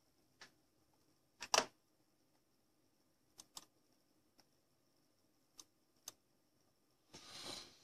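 Handling noise from a hand holding a smartphone: scattered sharp clicks and taps, the loudest a quick double click about a second and a half in, then a short rustle near the end.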